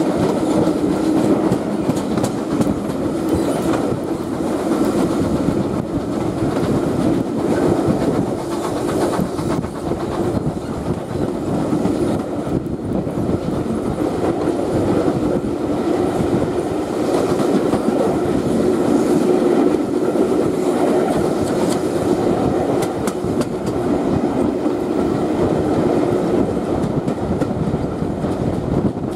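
Heritage passenger coaches running at speed behind a steam locomotive, heard at an open carriage window: a steady rolling drone of wheels on rail, with rushing air and the clickety-clack of wheels over rail joints, the clicks more frequent near the end.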